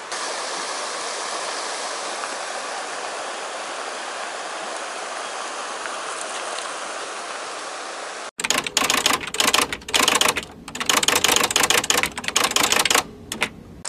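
Steady rushing of a mountain stream under falling rain. About eight seconds in it cuts abruptly to a loud, choppy run of rapid stuttering hits that stops shortly before the end.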